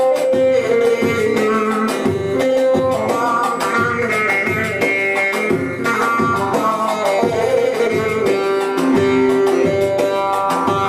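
Bağlama (long-necked Turkish saz) playing a Turkish folk melody over a steady percussion rhythm.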